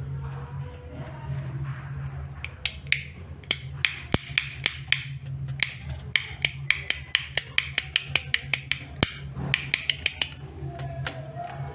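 Modular plastic rocker wall switch clicking sharply many times as it is flipped on and off, about four clicks a second at the quickest stretch in the middle, over a steady low hum.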